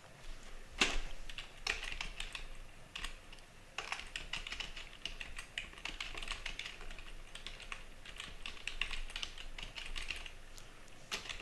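Typing on a computer keyboard: a steady run of key clicks, starting about a second in and stopping shortly before the end.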